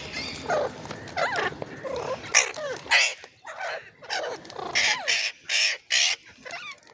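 Ringneck parrot calling: short warbling, gliding chatter, then three loud harsh squawks in quick succession near the end.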